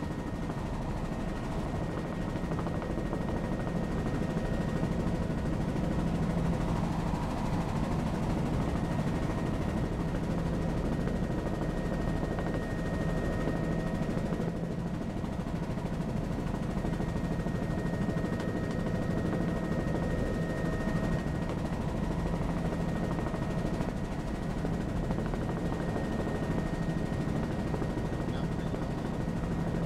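Tour helicopter in flight, heard from on board: a steady rapid chop of the rotor blades under a thin, steady high whine.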